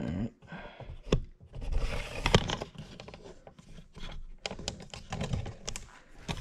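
Handling noise from a camera being repositioned: irregular clicks, light knocks and scraping, with the loudest click about two seconds in.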